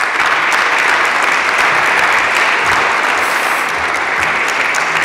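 Audience applauding, steady and sustained, easing slightly near the end.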